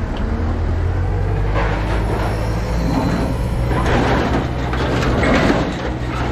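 Scrap-yard material handler's grapple grabbing and dragging steel scrap in a steel dump trailer: metal clanking and scraping over a steady diesel engine hum, the clatter starting about a second and a half in.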